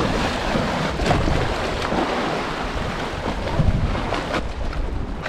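Wind blowing on the microphone, with small waves splashing and washing against a stone seawall.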